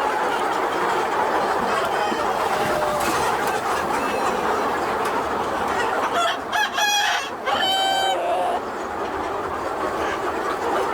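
A large flock of chickens clucking together, with a rooster crowing about six seconds in.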